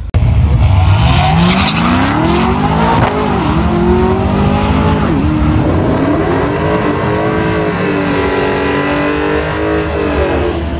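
A car accelerating hard at full throttle on a drag-strip run. The engine revs climb, then drop sharply at upshifts about three and five seconds in, and it pulls on steadily in a higher gear after that.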